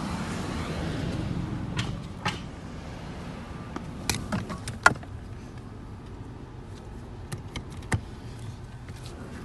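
Scattered sharp clicks and knocks from handling around a car's door and footwell, the loudest about five seconds in, with a low rumble during the first two seconds.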